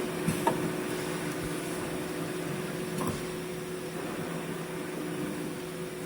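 Steady mechanical hum with a faint hiss from a running machine, with a few small clicks.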